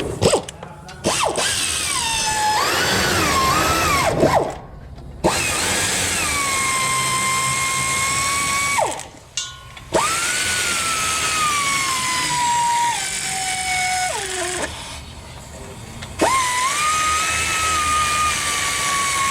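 Cordless power drill/driver spinning an 11mm swivel socket to run bolts in, in four bursts of motor whine, each dropping in pitch as the tool slows and stops.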